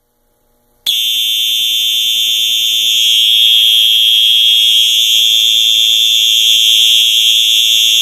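Fire alarm horn/strobe on a Simplex 4001 panel sounding a loud, steady, continuous high-pitched horn tone after a manual pull station is pulled. It starts about a second in and cuts off suddenly at the end as the alarm is silenced at the panel.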